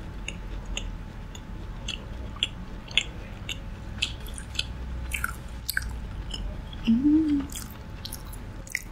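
Close-miked chewing of chewy tteokbokki rice cakes, with many small wet mouth clicks. A short, low hum rising and falling in pitch, about seven seconds in, is the loudest moment.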